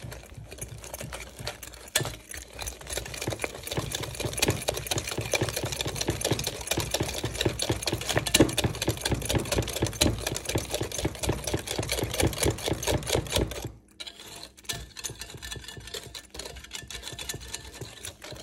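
Wire whisk beating eggs into sugar and starch in a ceramic bowl: a rapid, steady clatter of the wires against the bowl. It breaks off briefly about 14 seconds in and resumes more softly.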